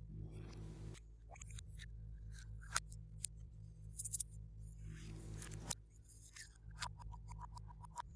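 Glossy slime being worked by hand: many sharp sticky clicks and pops as it is pressed and pulled, with two longer squelching passes, one at the start and one about five seconds in.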